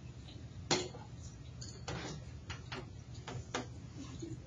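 Graphite pencil sketching on paper: a series of short, irregular scratching strokes, the strongest a little under a second in, over a steady low hum.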